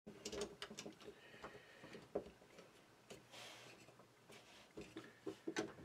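Faint, scattered clicks and knocks of hard plastic LEGO pieces as cockpit modules are pulled off a model and pressed back on.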